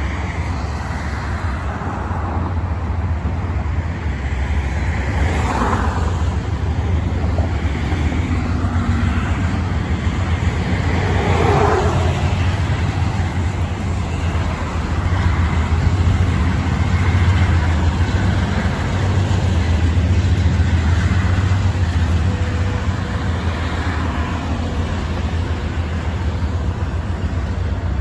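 Highway traffic passing close by: cars and trucks going past, with two clear tyre swishes about five and eleven seconds in, over a steady low rumble.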